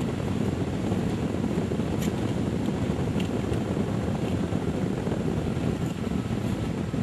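Steady low rumble of a car driving, with engine and road noise heard inside the cabin.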